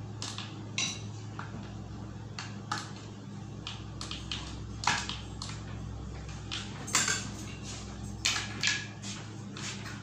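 Irregular clicks and clacks of hard plastic parts being handled and fitted into a plastic electrical enclosure, the loudest about five seconds and seven seconds in. A steady low hum runs underneath.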